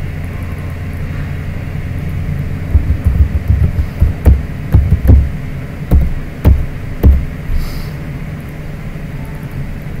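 Computer mouse clicks and keystrokes picked up through the desk as a run of about a dozen sharp knocks with a low thump, starting about three seconds in and stopping about seven seconds in, over a steady low electrical hum.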